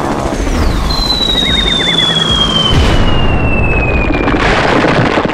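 Cartoon bomb-drop sound effect: a long falling whistle, then an explosion with a boom about four and a half seconds in.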